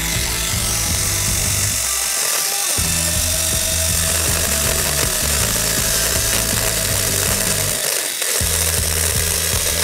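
ETOOLAB 5-inch cordless electric mini chainsaw running and cutting through the dry stems of a dead bush, a steady whine.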